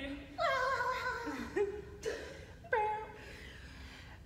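Women's voices making three short wordless vocal sounds that fall in pitch, with chuckling, trailing off after about three seconds.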